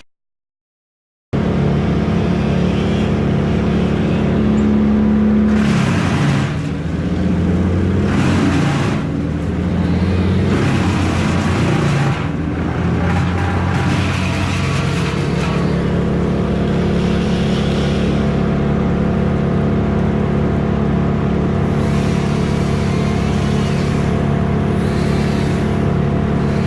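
Engine running steadily, with surges and changes in pitch in the middle stretch. It cuts out completely for about the first second.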